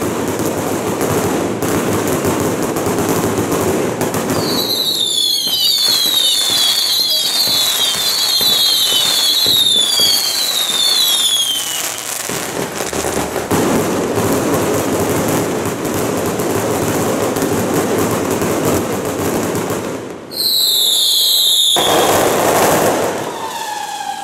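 Daytime fireworks going off in a continuous crackling barrage. Many high falling whistles run through it from about four to twelve seconds in, and another loud burst of falling whistles comes near the end.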